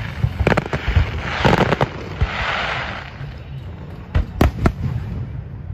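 Fireworks aerial shells bursting in a display: sharp bangs in the first two seconds and a quick run of three about four seconds in, with a noisy hiss between.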